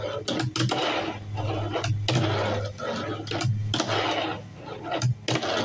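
Tech Deck fingerboard rolling and sliding across a plastic tabletop and rail in repeated short runs, with sharp clicks as the board's trucks and tail knock the table.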